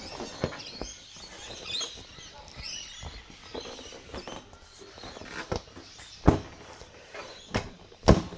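Irregular knocks and clicks of a motorcycle seat being pushed and worked onto its mounts, with two louder clunks late on, the last as it latches into place. Birds chirp faintly in the background.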